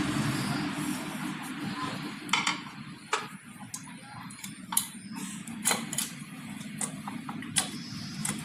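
Hand tools and metal parts clicking and tapping during motorcycle clutch work: about ten sharp, irregular clicks over a low, steady background hum.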